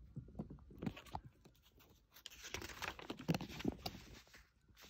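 Page of a paper picture book being turned by hand: a few soft clicks of handling, then faint crinkly paper rustling through the middle.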